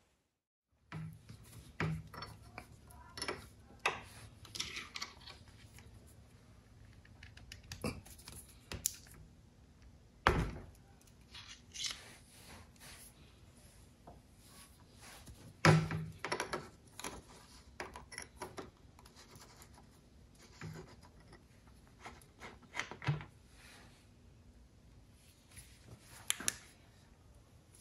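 Scattered metal clicks, knocks and scrapes of hand work on a motorcycle gearbox as its filler plug is unscrewed and taken out, with the two loudest knocks about ten and sixteen seconds in.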